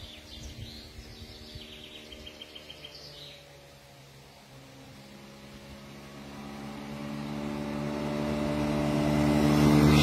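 Small birds chirping, with a quick even trill, for the first few seconds; then a motor vehicle's engine approaches, growing steadily louder toward the end.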